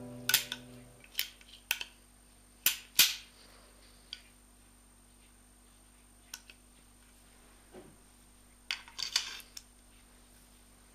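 Scattered sharp metal clicks and clacks, the loudest about three seconds in and a quick cluster near the end, from the parts of an 1860 Army percussion revolver being handled and fitted together during reassembly.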